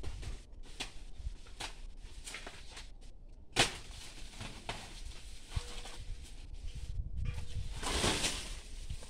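Dry banana leaves rustling and crackling as they are pulled and torn from the plant, with scattered snaps and one sharp crack a little over a third of the way in.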